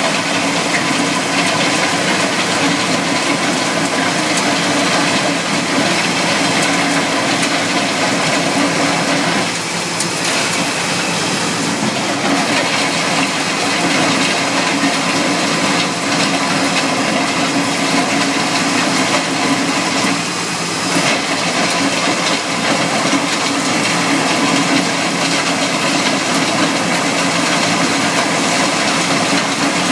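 Takeuchi TL12R2 compact track loader's diesel engine running steadily under load while it drives a Simex PL 450 trench-cutting wheel, with a broad hiss over the engine drone. The level dips briefly twice.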